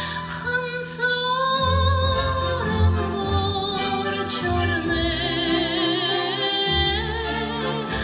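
A woman singing into a microphone over instrumental accompaniment, with long held notes; a note about five seconds in is held for two seconds with wide vibrato.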